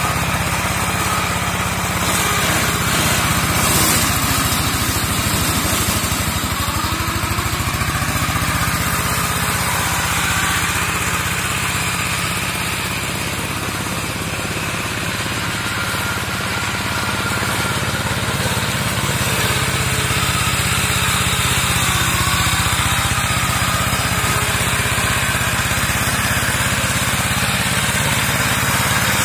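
Two-wheel walk-behind tractor converted into a land-clearing mower, its engine running steadily under load while it mows undergrowth. The sound grows a little quieter around the middle, then builds again.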